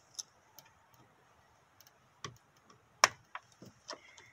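Scattered sharp clicks of a small flathead screwdriver prying at the little plastic tabs inside a 2003 Toyota Tundra's interior door handle, the loudest about three seconds in.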